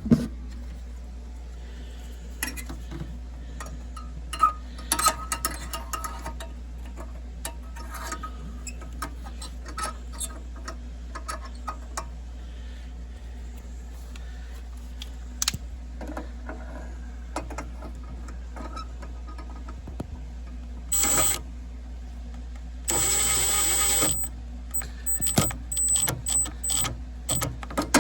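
Hands-on work on a furnace: scattered clicks, knocks and rattles of tools and metal parts over a steady low hum, with two short loud noisy bursts near the end, the second lasting about a second, then a quick run of sharp clicks.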